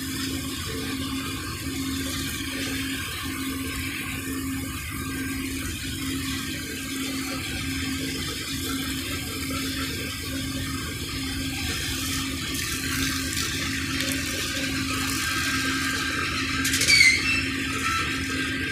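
Water from a hose spraying and splashing against the steel nose of a diesel locomotive, a steady hiss, over a low hum that pulses evenly. A brief high squeal rises near the end.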